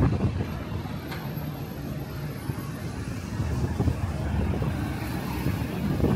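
Road traffic on a busy city street, cars and buses passing, with wind buffeting the microphone in low gusts.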